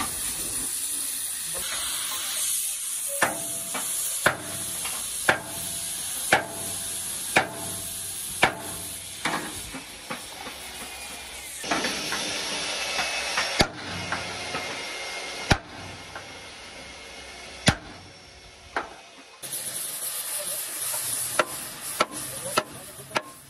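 A gas heating torch hisses steadily while a sledgehammer strikes a steel truck chassis frame rail, about one sharp blow a second at first, then a few widely spaced blows, and a quick run of strikes near the end. The steel is being heated and hammered into shape.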